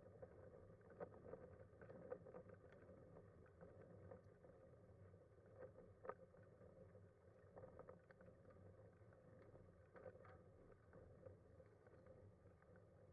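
Faint steady rolling noise of a Kuschall K-Series manual wheelchair with a Freewheel front wheel moving over asphalt, with scattered light clicks and taps from the chair.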